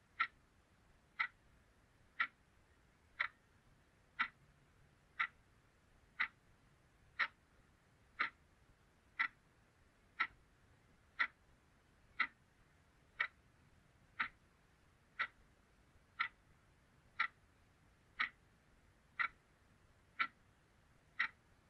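A clock ticking steadily, one sharp tick each second, with near silence between the ticks.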